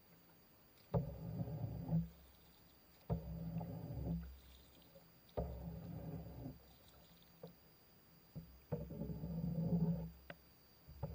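Paddle strokes in a small boat: every two to three seconds a wooden paddle knocks and works the water, each stroke a sharp knock followed by about a second of low rumbling and gurgling, four strokes in all.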